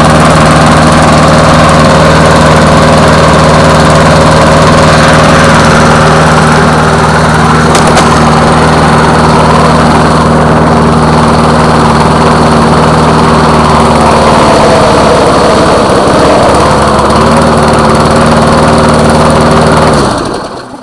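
Briggs & Stratton single-cylinder engine on a push lawn mower running steadily at a constant speed. Its speed wavers slightly around the middle, and the sound falls away near the end.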